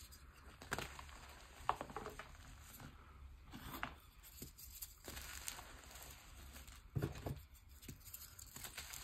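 Hands crushing and crumbling pressed gym-chalk blocks into loose chalk powder: soft, dry crunching and crackling, with sharper cracks about a second in, near two seconds, and a cluster around seven seconds.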